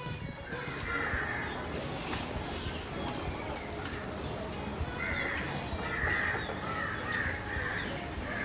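Crows cawing, a few calls about a second in and then a string of caws in quick succession over a steady outdoor hiss.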